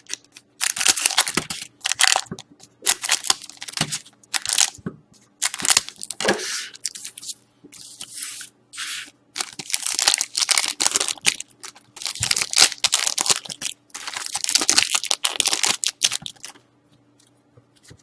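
Foil trading-card pack wrappers being torn open and crinkled in repeated bursts, which stop about a second and a half before the end.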